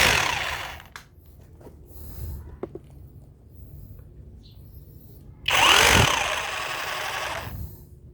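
Dagmara cordless rotary hammer triggered briefly twice, its motor spinning up and winding down each time; the second run, about five and a half seconds in, lasts about two seconds.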